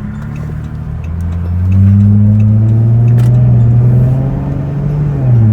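Dodge Charger's 3.6-litre V6 engine pulling the car along at low speed. Its low drone climbs in pitch about a second and a half in, holds steady, then drops a little near the end.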